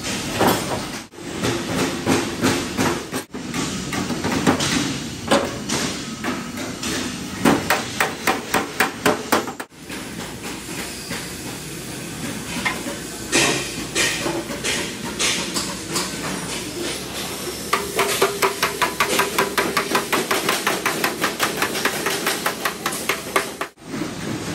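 Hammering: many sharp, irregular hammer blows, turning into a fast, even run of strikes in the last few seconds. The sound cuts off abruptly several times.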